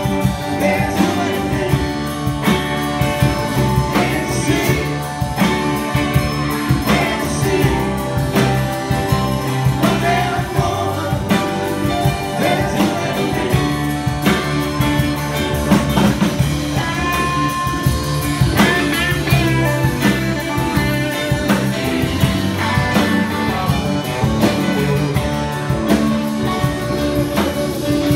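Live rock band playing with a woman singing lead, backed by acoustic and electric guitars, bass, drums and keyboard.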